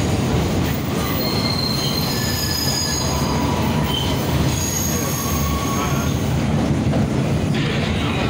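Vintage BMT AB Standard subway train running on elevated track, heard from inside the car: a steady rumble of wheels on rail with several brief high-pitched wheel squeals.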